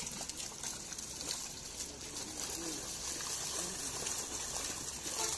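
Water splashing and trickling, with faint distant voices.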